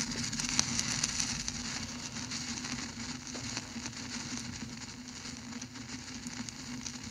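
Steady low hum under a crackling, hissy noise with many faint clicks.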